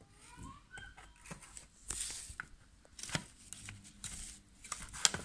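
Hands handling a rebuilt Makita 14.4 V drill battery pack on its plastic charger: scattered light clicks and knocks with rustling between them, the sharpest click near the end.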